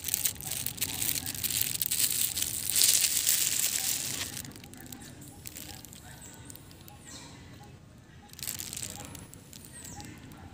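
Plastic crinkling and rustling, loud for about the first four seconds, then dying down to faint, scattered crackles.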